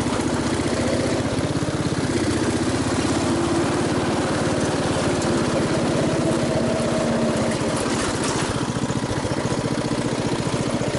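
MTD riding lawn mower's engine running steadily while the mower is driven, with a slight rise and fall in pitch.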